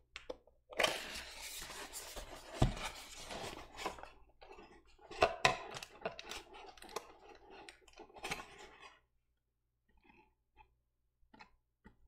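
Small cardboard box being handled and opened by hand: scraping and crinkling of its cardboard flaps, with a few sharp knocks, the loudest about two and a half seconds in. The last few seconds are nearly quiet apart from a few small clicks.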